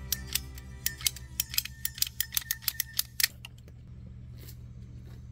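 Hand PVC pipe cutter clicking in quick repeated strokes, about five a second, as it is squeezed through white PVC pipe; the clicks stop a little over three seconds in, when the cut is through.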